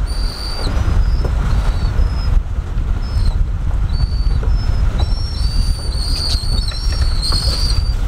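Wind buffeting the microphone with a heavy low rumble, over which seabirds give many short, high, squeaky calls, coming thicker in the second half.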